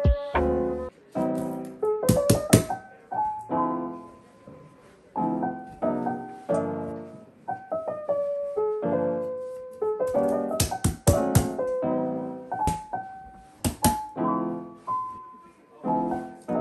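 Soft solo piano music, with sharp slaps of palms smacking paper posters flat against a wall, in a cluster about two seconds in and several more between about ten and fourteen seconds in.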